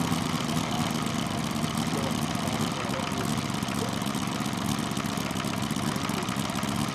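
Quarter-scale model Bentley BR2 nine-cylinder rotary aero engine running steadily in a model airplane on the ground, with its propeller turning.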